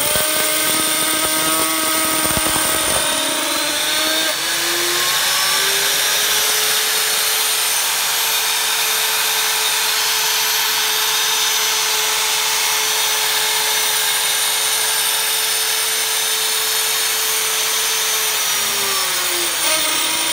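Kinematica Polytron PT 1035 homogenizer drive motor running at high speed: a whine over a hiss. Its pitch rises over the first few seconds as it comes up to speed, holds steady, then falls in the last couple of seconds as it slows down.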